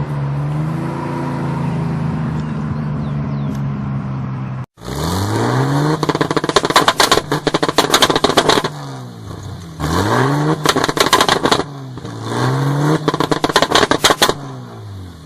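Chevrolet Opala engine idling steadily with a deep, loud rumble. After a sudden break it is revved three times. Each rev rises and falls in pitch, with a loud crackling rattle from the exhaust.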